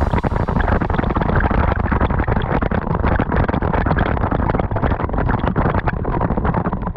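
TAG 125 go-kart running at speed, heard through an onboard camera microphone: its IAME X30 two-stroke engine under loud, rough, fluttering wind buffeting.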